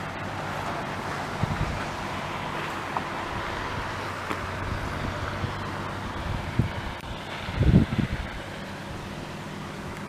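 Steady outdoor traffic noise with wind on the microphone, and a brief low buffet of wind about eight seconds in.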